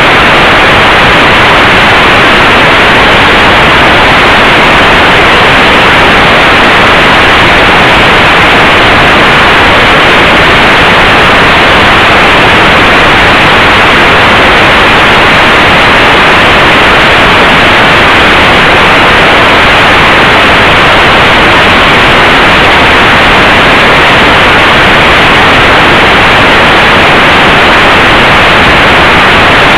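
Loud, steady static hiss with no pitch or rhythm, the noise of an analog FPV video receiver's audio channel.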